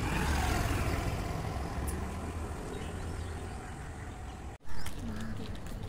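Small petrol scooter riding past close by, its engine note dropping in pitch as it goes by and then fading into steady road noise. The sound breaks off for an instant about four and a half seconds in, followed by a short louder sound.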